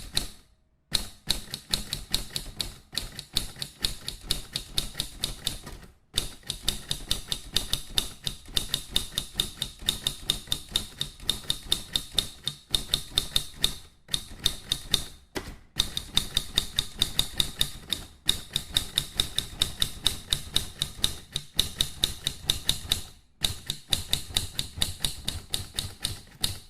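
Typing sound effect: rapid, sharp keystroke clicks in long runs, broken by brief pauses a few times.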